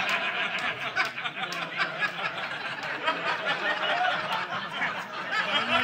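Comedy club audience laughing together at a punchline: many voices at once in a steady wave of laughter.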